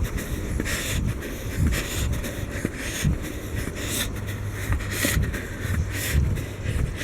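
A person breathing hard while walking briskly, close to the microphone, with a noisy breath about once a second over a low rumble of wind and handling on the microphone.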